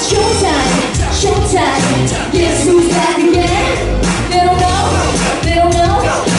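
Pop song playing: a sung vocal line over a steady beat and bass.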